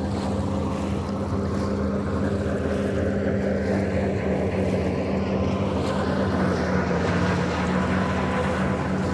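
Motorboat passing at speed: a steady engine hum under a rushing sound that grows brighter and a little louder over the second half.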